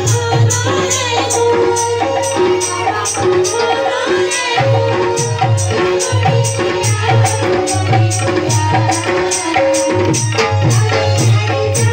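Loud dance music with a fast, steady drum beat, about three strokes a second, over a held bass and a melody.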